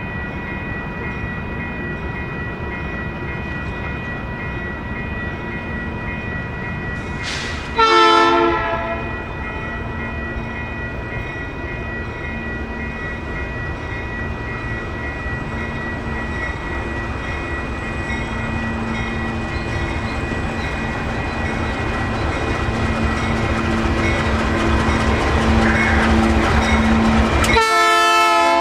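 Canadian Pacific diesel freight locomotives running past, growing louder as they come closer. The air horn sounds one short blast about eight seconds in and another right at the end.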